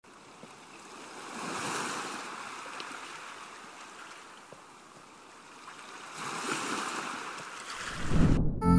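Ocean surf: two waves wash in and recede. Near the end a louder low rushing swell builds and cuts off abruptly.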